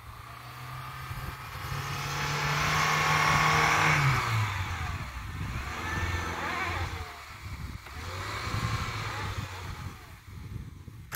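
Lada Niva's engine pulling hard as the car ploughs through deep snow: a steady note for about four seconds, then the pitch drops and rises and falls with the throttle.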